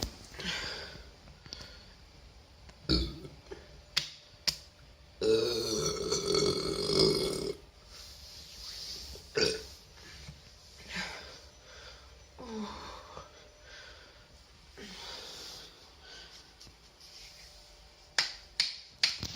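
A person burping: one long, drawn-out burp starting about five seconds in and lasting about two seconds, with shorter sharp sounds scattered around it and a quick run of clicks near the end.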